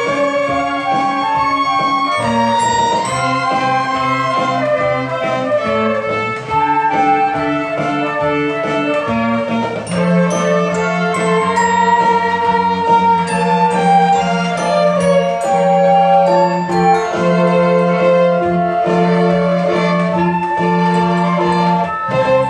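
A small ensemble of violins, flutes and clarinet playing a classical-style piece together: a melody of sustained notes, with a low note held and repeated under it from about halfway through.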